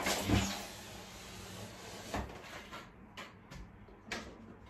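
A window being opened: a knock, then a scraping slide for about three seconds that stops sharply, followed by a few clicks and knocks.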